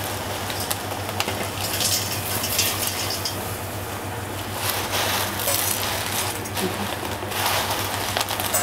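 Water at a rolling boil in a steel pot over a gas burner, bubbling steadily, with a few short crackles and splashes as dry vermicelli strands are dropped in.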